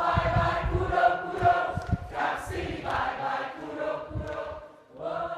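Background music: several voices singing held chords, like a choir, over irregular low thuds.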